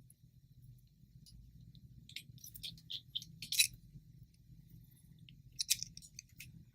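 Scattered small metallic clicks and taps of a screwdriver and tiny screws on an iPhone 6's internal cover plate as the plate's screws are worked out. The sharpest tap comes about three and a half seconds in, with another cluster near the end.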